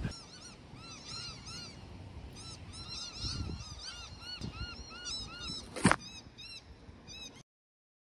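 Birds calling: many short, arched, honk-like notes, several overlapping, repeating over steady outdoor background. A single sharp knock comes about six seconds in, and the sound cuts off abruptly shortly before the end.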